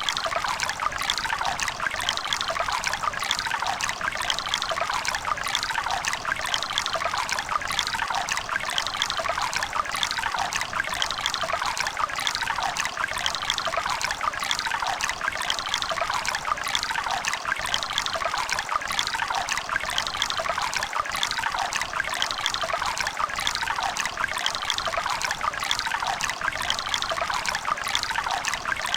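River water running and trickling over stones, a steady bright babble with little low rumble.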